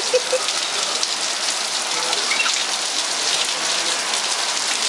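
Steady rain falling: a dense, even hiss of drops hitting the ground.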